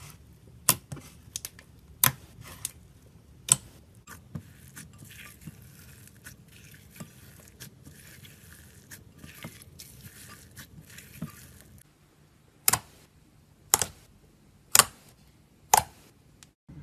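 Glitter slime squished and poked by fingers: sharp wet pops and clicks as trapped air bursts out of the slime. In the middle there is a stretch of fine crackling while loose glitter is kneaded into the slime in a glass bowl. Near the end come four loud pops about a second apart as fingers poke holes into the slime.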